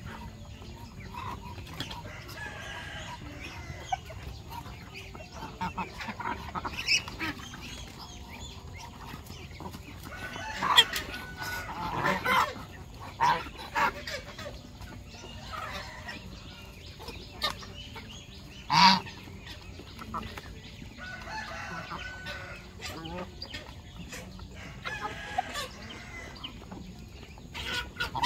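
Chickens clucking and a goose honking now and then in a feeding flock of chickens and Muscovy ducks. The calls come in scattered short bursts, loudest in a cluster around the middle and once more a little later.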